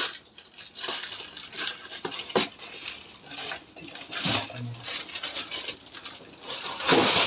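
Handling noise: rustling and scraping with a few sharp knocks as things are moved about, the loudest rough scrape near the end.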